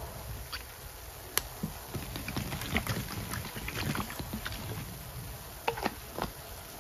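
Rubber-gloved hands working thick, foamy Ajax cleaning-paste suds: wet squishing with many small irregular crackles and pops.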